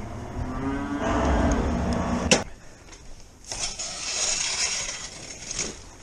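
A dairy cow mooing: one long call, followed about two seconds in by a single sharp knock, then a hissing noise.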